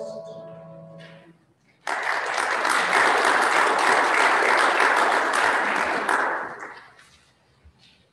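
The last held note of a two-voice sung piece dies away in the first second, then a congregation applauds for about five seconds, the clapping fading out near the end.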